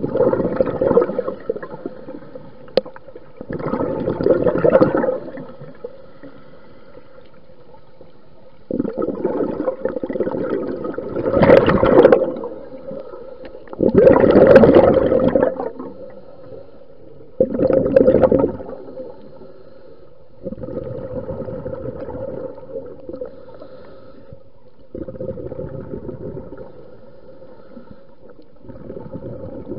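Scuba regulator exhaust bubbles heard underwater: a diver's exhaled breath gurgling out in bursts of a second or two every few seconds, with quieter pauses between breaths. A faint steady hum runs beneath.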